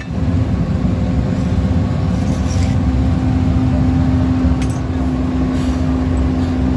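Steady drone of a running motor: a constant low hum over a low rumble, unchanged throughout.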